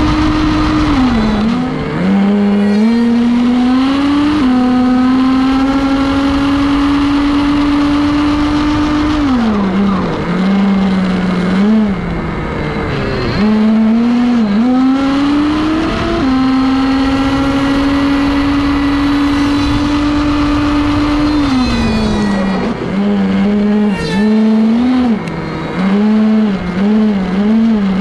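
Nitro RC truck's small two-stroke glow engine, heard close from an onboard camera, running at high revs in several long held pulls. Between them the revs drop and climb again, and near the end the throttle blips up and down in quick rises.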